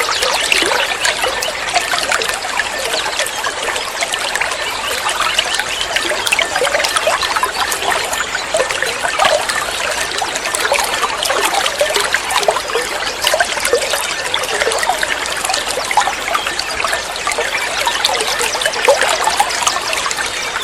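Water trickling and splashing steadily, a continuous babbling with many small droplet sounds and no pauses.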